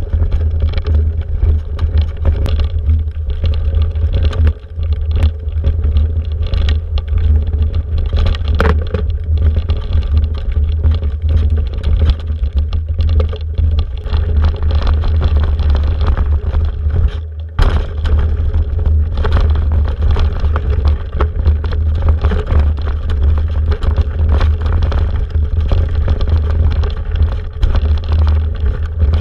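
Mountain bike being ridden over a rough dirt trail, heard from a handlebar-mounted camera: a heavy low wind rumble on the microphone with frequent rattles and knocks from the bike over the ground, easing briefly a little past halfway.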